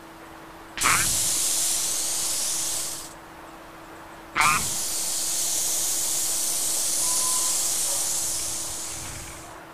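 Cola spraying out of a shaken can with a loud hiss, in two bursts: the first about a second in, lasting about two seconds; the second, after a short gap, running longer and fading out near the end. Each burst opens with a brief squeal-like onset.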